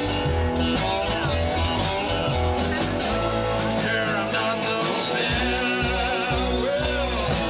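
Live blues-rock band: two cigar box guitars strummed over drums keeping a steady beat, with sliding pitched lines over the top.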